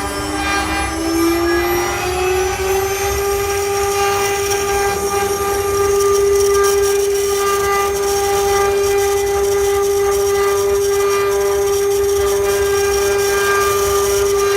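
CNC machine's motor whining as it spins up, its pitch rising over the first three seconds, then running at a steady speed.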